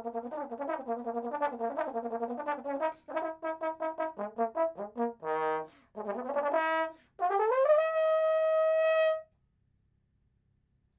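Solo trombone playing a quick run of notes, then shorter separate notes, then sliding up into a long held final note that stops about nine seconds in.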